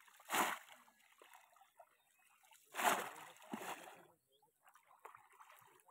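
Bamboo polo fish trap plunged down into shallow floodwater, making sharp splashes: one just after the start, a second about three seconds in, followed by a smaller splash, with light sloshing of wading legs between.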